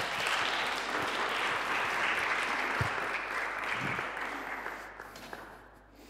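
A congregation applauding, with the clapping dying away after about five seconds.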